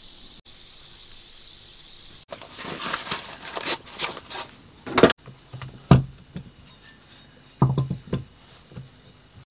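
A faint steady fizz from water stones soaking in water, then rustling as a diamond sharpening plate is slid out of its fabric sleeve. Several sharp knocks follow as the plate, in its holder, is set down and positioned on the wooden workbench; the loudest two come about five and six seconds in.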